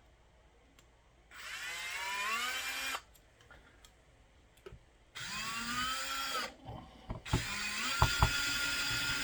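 Power drill running in three bursts, each rising in pitch as the motor spins up and then holding steady. A couple of sharp knocks come during the last run.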